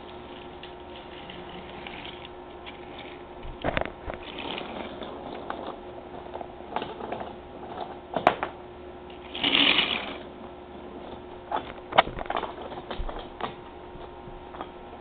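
Toy train running on its track: a steady motor hum with scattered clicks and clatter, and a brief noisy burst about ten seconds in.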